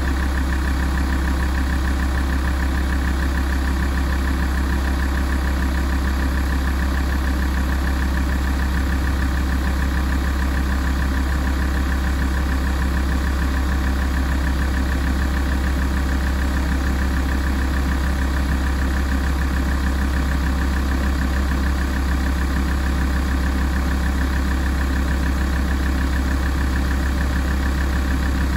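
Alfa Romeo 166 2.4 JTDm five-cylinder turbodiesel idling steadily while warming up.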